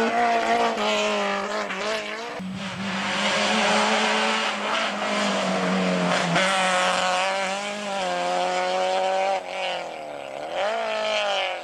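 Rally car engines at full throttle: a Simca Rallye 1 passing close by, then a Volkswagen Golf GTI accelerating hard. The Golf's engine note climbs and drops back at each gear change.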